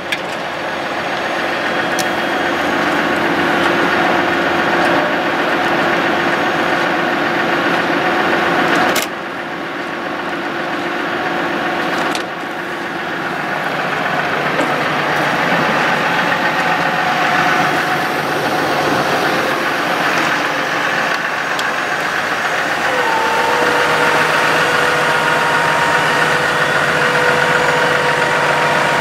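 Dodge 5500 truck's diesel engine idling steadily, with two sharp clicks about nine and twelve seconds in. A steady higher whine joins the engine sound about two-thirds of the way through.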